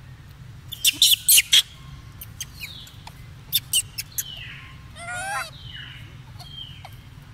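Loud sharp clicks in two clusters, four about a second in and three around four seconds in, with short high chirps that fall in pitch and a brief wavering squeal about five seconds in.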